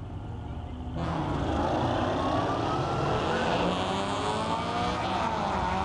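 An engine running loud, coming in abruptly about a second in, its pitch sliding up and down.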